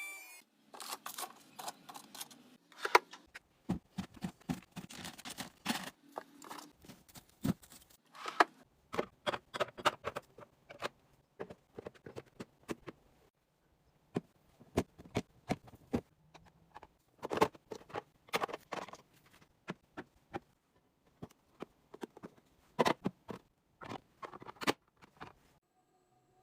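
Containers and food items being handled, moved and set down in a refrigerator: a run of irregular clicks, taps and light knocks in clusters, with short pauses between them.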